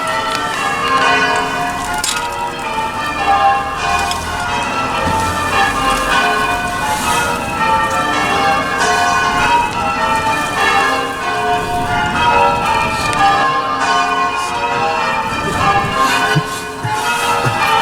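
Church bells being change-rung: a continuous run of overlapping bell strikes, the pitches stepping down through the bells in each row and the order shifting from row to row.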